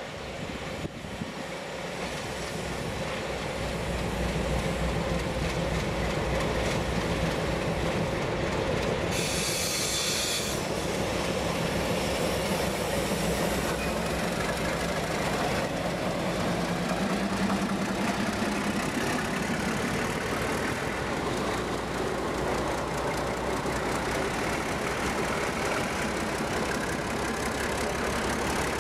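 Two ALCo-design 830 class diesel-electric locomotives hauling a train of wagons slowly past. Their engines grow louder over the first few seconds as they approach, then hold a steady loud running note as they go by, with a short burst of hiss about nine seconds in.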